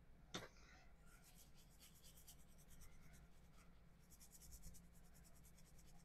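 Faint, rapid scrubbing of a small brush on a circuit board. The freshly soldered button-switch joints are being cleaned with isopropyl alcohol. A single click comes about half a second in, then two spells of quick back-and-forth strokes.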